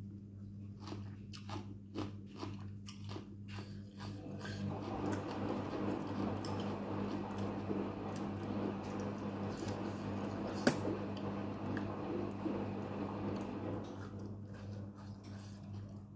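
Close-up chewing of a mouthful of som tam with thick noodles: separate wet crunching clicks at first, becoming denser, continuous crackly chewing from about four seconds in, with one sharper click a little past the middle. A steady low hum runs underneath.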